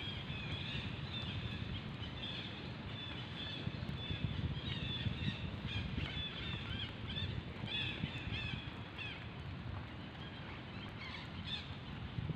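Birds chirping in short repeated calls, thinning out after about nine seconds, over a steady low rumble.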